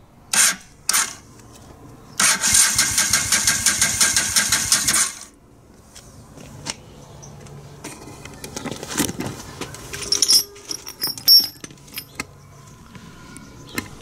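V-twin motorcycle's electric starter cranking the engine on a low battery: two short stabs at the starter, then about three seconds of cranking with an even beat, and the engine does not catch.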